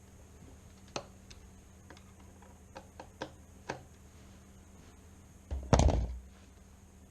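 Scattered light metal clicks and taps of a screwdriver and lock hardware while the lockset's mounting screws are tightened, then a single loud thump a little under six seconds in.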